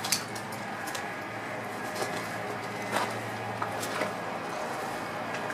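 A few scattered footsteps on gravel and concrete debris, sharp clicks roughly a second apart, over a steady outdoor background hiss.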